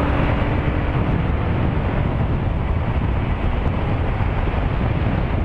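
Steady wind rush on the microphone of a Suzuki V-Strom 1000 motorcycle under way at road speed, with the bike's V-twin engine and tyre noise running underneath.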